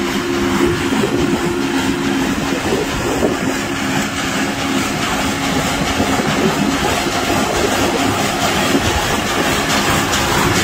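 Truck-mounted rumble strip milling machine cutting centerline rumble-strip grooves into fresh asphalt: the rotating milling drum chewing through the pavement over the running diesel engine of the truck, a loud continuous noise with a steady droning tone.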